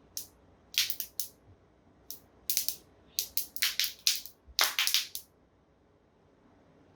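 Protective plastic film being peeled off a new laptop screen panel: a run of short, sharp crackling rips that stops about five seconds in.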